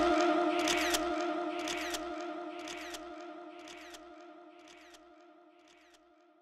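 Closing soundtrack: a steady humming drone with a sharp click and a soft low thump about once a second, the whole fading out to silence near the end.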